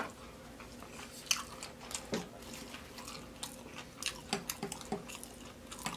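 A person chewing deep-fried ribs close to the microphone: irregular soft crunches and wet mouth clicks.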